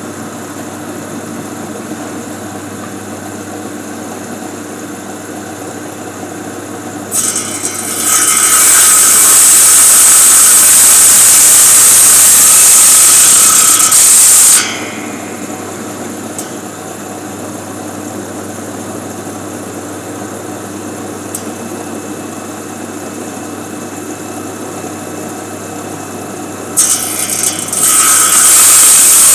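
Simple power wood-cutting saw running steadily, then cutting through wood twice: from about seven seconds in for about seven seconds, and again near the end. It is much louder and harsher while the blade is in the wood.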